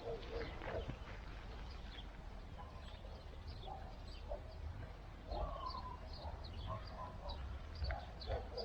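Birds calling outdoors in short, scattered chirps over a steady low rumble.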